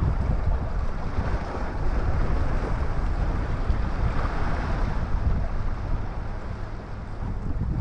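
Wind buffeting the microphone: a steady, gusting rumble with no other clear event.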